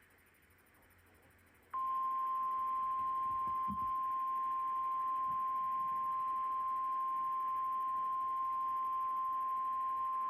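NOAA Weather Radio 1050 Hz warning alarm tone: one steady, unbroken high tone. It comes in sharply about two seconds in, over faint radio hiss, and holds to the end. It is the alert that signals a warning is about to be read, here a tornado warning.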